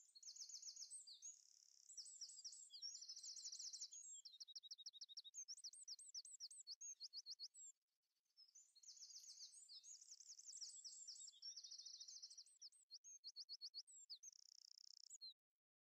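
A songbird singing two long bouts of fast, varied trills and whistles, with a short pause about halfway through; the song cuts off abruptly shortly before the end.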